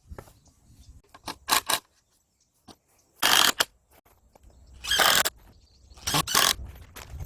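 A hand tool scraping on wood in short, separate strokes, about four of them with pauses in between.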